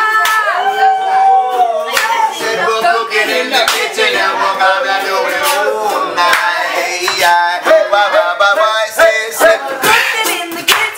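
Live acoustic jam: a small strummed stringed instrument under voices singing, with hand clapping throughout.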